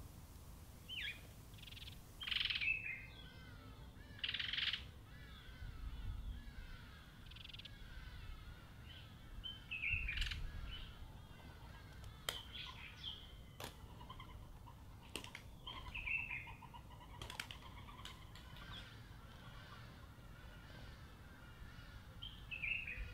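Small birds chirping and calling in short repeated notes, a few of them louder, with a handful of sharp clicks as birds peck seed on the stone feeding table.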